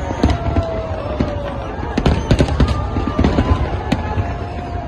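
Fireworks display going off: a rapid, irregular run of bangs and crackles, densest about two seconds in, with a few long tones sliding down in pitch.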